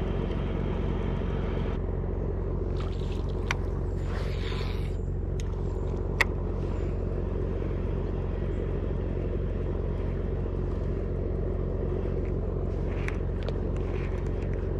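A steady, low engine drone that holds an even pitch throughout, with a couple of sharp clicks a few seconds in.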